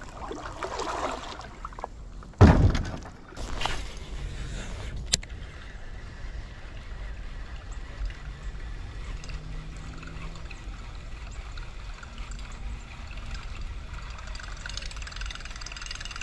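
Creek water trickling around a kayak, with a few knocks and splashes in the first few seconds. The loudest is a sharp thump about two and a half seconds in; after that there is a steady, even trickle.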